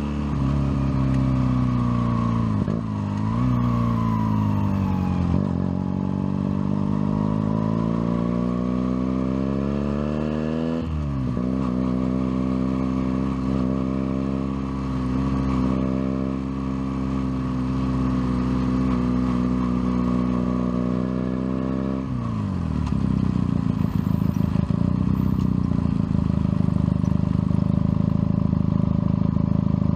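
Junak M11 Cafe motorcycle engine, heard from on the bike: the revs fall, then climb steadily and drop sharply at a gear change about eleven seconds in. It holds an even pace, then drops to a lower, rougher idle in the last several seconds as the bike stands still.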